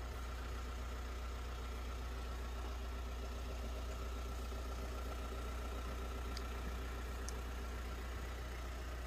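A vehicle engine idling steadily, an even low hum that does not change.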